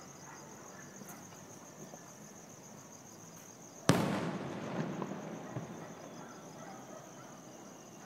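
Aerial firework shell bursting with a single loud boom about four seconds in, echoing and trailing away over a couple of seconds with a few smaller pops.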